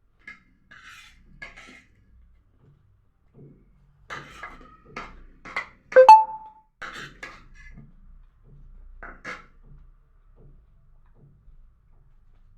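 Mealtime sounds of a utensil on dishware: short scrapes and clicks, with one sharp clink about halfway through that rings briefly, like metal striking a plate or bowl.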